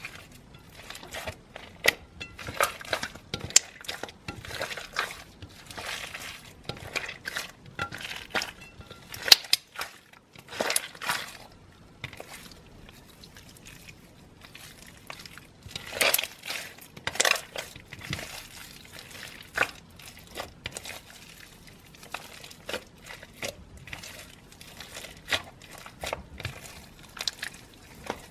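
Slime being squeezed and played with by hand: irregular crackling and clicking pops.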